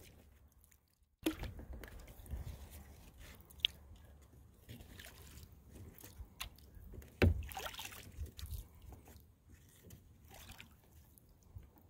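Paddle strokes from a Delta 18 sea kayak: water splashing, sloshing and trickling off the blade and hull, with scattered knocks and clicks, the sharpest about seven seconds in. It starts after a brief near-silent gap about a second in.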